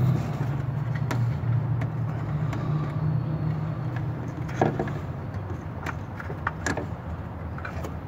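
A few light clicks and taps of a hand wrapping a stripped wire end around a ground screw, over a steady low hum.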